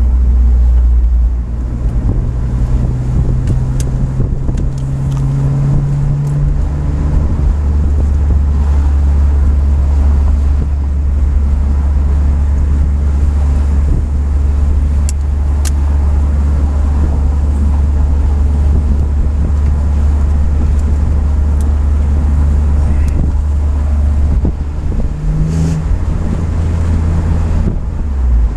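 BMW M3 driving, heard from inside the cabin: a steady low engine and road drone. The level dips briefly about a second and a half in and again near the end.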